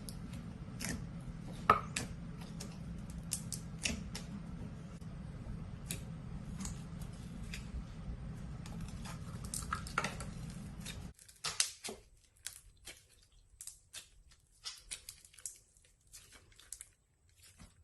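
Irregular clicks, taps and crinkles of small objects and packaging being handled, over a low steady hum. The hum cuts off suddenly about eleven seconds in, leaving only scattered clicks.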